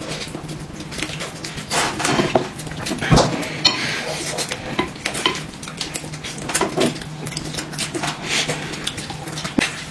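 Eating utensils clinking and scraping against bowls and plates during a meal, in frequent irregular clicks and knocks over a steady low hum.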